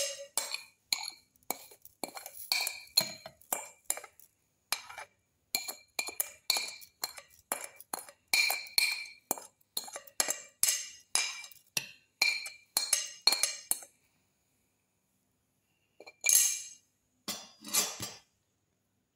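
A spoon tapping repeatedly on a stainless steel grinder jar, about two clinks a second, knocking cumin seeds off into the jar. The tapping stops a few seconds before the end, followed by two short scraping sounds.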